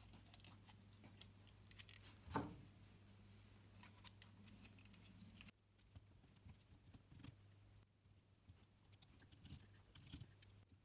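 Near silence over a low steady hum: faint clicks and taps of an 18650 lithium cell pack being handled and its nickel strips soldered, with one soft knock about two and a half seconds in.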